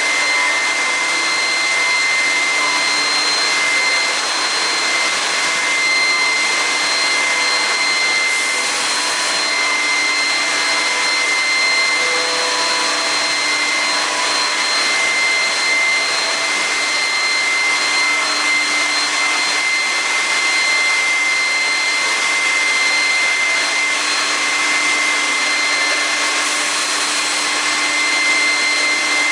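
Woodworking CNC machining centre running: a steady high whine over a constant rush of air.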